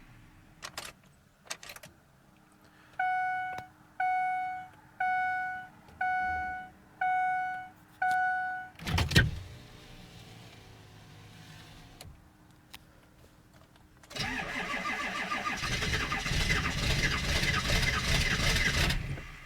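Ford 7.3-litre V8 diesel's cold-start sequence at 15°F with the block heater unplugged: a couple of light clicks, a dashboard chime ringing six times about once a second, a thump, a few quiet seconds of waiting, then the starter cranking the engine for about five seconds and stopping without it running: a hard start.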